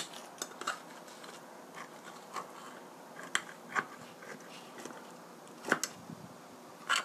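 Kitchen scissors snipping through a baked potato pancake on a plate, several sharp snips at irregular intervals.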